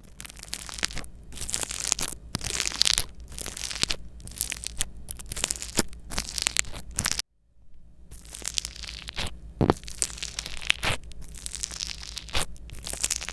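Slime being squished, poked and stretched by hand, a dense run of sticky crackles, pops and tearing sounds. The sound cuts out briefly about seven seconds in, then goes on.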